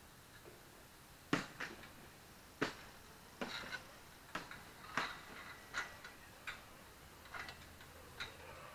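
Sharp metallic clinks and knocks, about a dozen at uneven intervals, some with a brief ring: parts and tools striking the metal frame of a playset tower during assembly.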